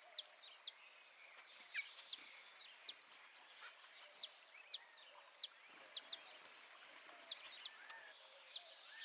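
Small birds calling faintly: short, sharp, very high chip notes at irregular intervals, roughly every half second, over softer chirps.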